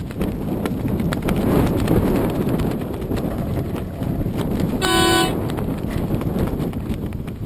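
Wind buffeting the camera's microphone in a steady low rumble, with irregular light knocks. About five seconds in, a short horn toot of about half a second sounds once.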